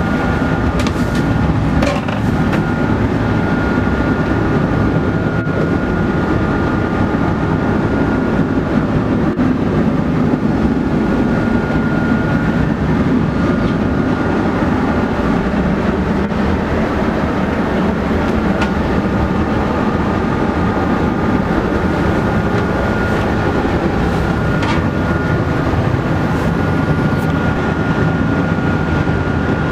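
A yacht's engine running steadily under way, with a thin steady whine above the low running noise.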